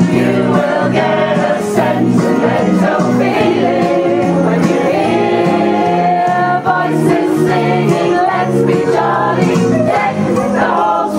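Music with several voices singing together like a choir over held, sustained notes.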